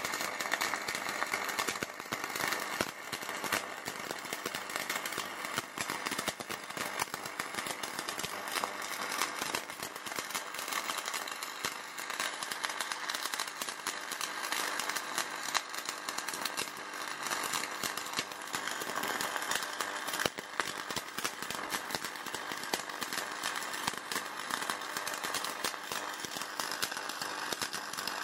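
Shielded metal arc (stick) welding: a 4 mm low-hydrogen LB47 electrode burning on the root pass at 180 A, giving a steady, dense crackle and hiss from the arc. The rod rests lightly in the groove, the short arc length the welder calls correct.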